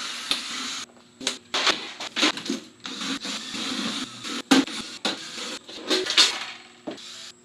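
Electronics being taken apart by hand: rasping scrapes of tools on plastic and metal, with many sharp clicks and knocks of parts being pried and handled.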